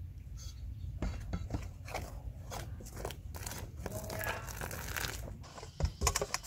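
A utensil stirring and scraping crumbly, damp tapioca-starch and flour dough in a stainless steel bowl: irregular scraping, crunching strokes. A few dull knocks come near the end as hands start pressing the dough.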